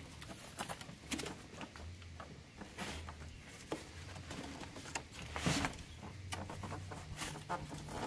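Cardboard box and packing being handled as a chainsaw is lifted out: irregular scrapes, rustles and light knocks, the loudest about five and a half seconds in.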